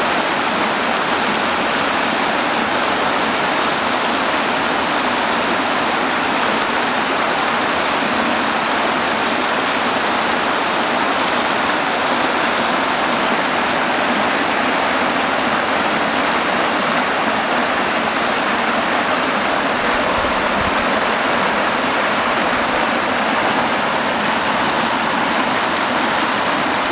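Steady rush of river water spilling over the edge of a low concrete weir in a thin cascade.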